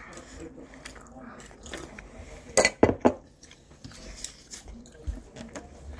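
Close-up eating sounds: chewing and small mouth clicks, broken by two loud sharp clicks about half a second apart near the middle.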